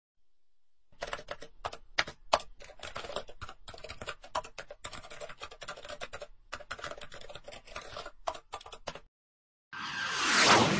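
Pencil-writing sound effect: rapid, irregular scratchy strokes and clicks that start about a second in and stop about nine seconds in. Near the end a loud whoosh sound effect sweeps in.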